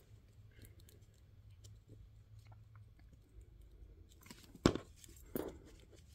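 Quiet handling of glued paper and card pieces, with small crinkles and clicks as they are pressed together. About four and a half seconds in comes a sharp knock, the loudest sound, as the plastic glue bottle is set down on the cutting mat, followed by a smaller knock about a second later.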